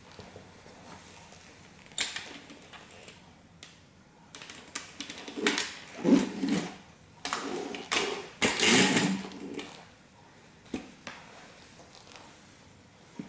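A Bugatti model toy car creaking, clicking and crackling under a heavy platform-soled boot pressing down on it. The noise comes in two louder spells about halfway through, with single knocks of the boots on the floor before and after.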